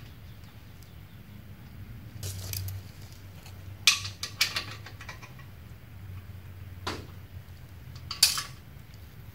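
Small steel fasteners clinking by hand: a bolt, washer and nut being handled and fitted to an exhaust hanger bracket on a steel frame rail, a few scattered metallic clicks over a low steady hum.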